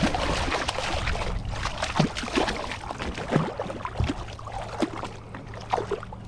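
Water splashing and gurgling as a hooked tautog thrashes at the surface beside a kayak and is grabbed by hand. A run of sharp splashes that eases somewhat in the second half.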